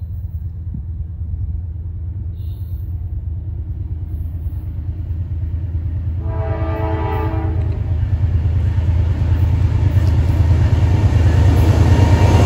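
Norfolk Southern freight train led by GE Dash 9-44CW diesel locomotives approaching, its engines a low rumble growing steadily louder. The locomotive horn sounds one chord blast about six seconds in, lasting over a second, and starts another at the very end.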